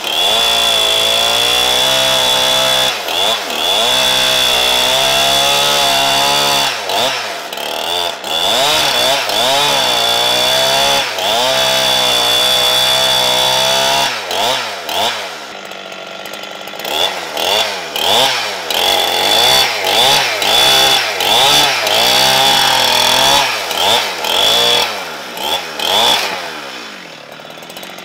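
Two-stroke chainsaw cutting through a stack of wooden boards, its engine held high and steady under load for about fourteen seconds. It then drops back and is revved in many short bursts, dying away near the end.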